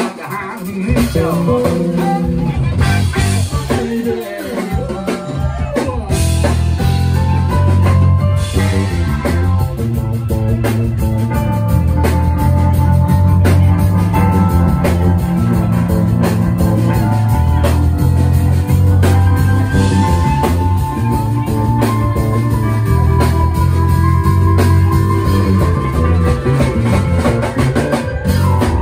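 Live funk band playing: keyboard, electric bass, drum kit and saxophone, with a heavy, driving bass line. The full band comes in about a second in after a brief drop.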